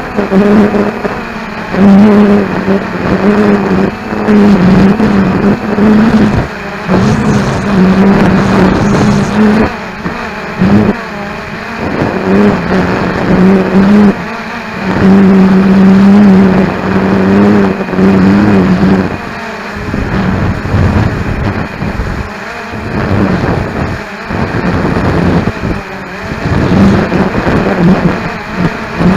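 Cheerson CX-20 quadcopter's motors and propellers humming, picked up by the keychain camera on the drone, with strong wind buffeting the microphone in gusts. The hum wavers slightly in pitch, then drops out about two-thirds of the way through, leaving gusty wind noise.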